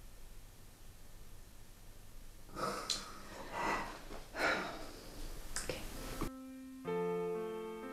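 A person's breaths, four or five loud puffs a second or so apart in the middle, which stop abruptly. Soft electric piano music begins near the end.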